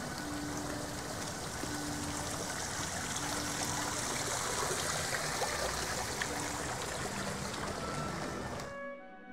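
Steady rushing outdoor noise that cuts off abruptly near the end, with faint music underneath.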